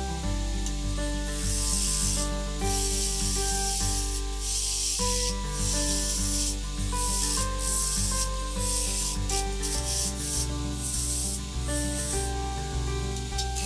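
A lathe gouge cutting a spinning crepe myrtle goblet blank: a hiss of shavings coming off in repeated passes, with short breaks between them. Background music with a stepwise melody runs underneath.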